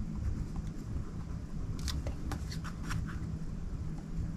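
Ballpoint pen writing on a sticky-note pad: a quick run of short scratchy strokes about two seconds in, over a low steady background hum.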